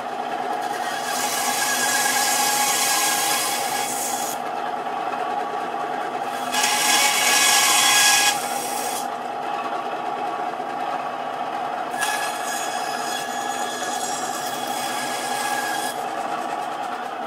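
9-inch Mastercraft bandsaw running with a steady hum while its blade cuts through meat three times. Each cut is a hiss lasting a few seconds, starting about a second in, about six seconds in and about twelve seconds in; the middle cut is the loudest.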